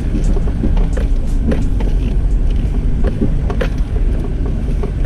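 Small 4x4 off-road vehicle driving over a rough track, heard from inside the cab: a steady low engine rumble with frequent knocks and rattles from the body and suspension.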